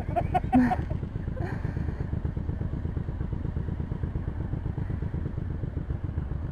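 Motorcycle engine running steadily with an even low pulsing, with a brief clatter in the first second.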